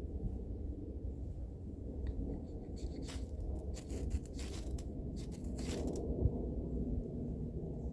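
Ferro rod struck several times in quick scraping strokes to light tinder shavings, between about two and six seconds in, over a steady low rumble.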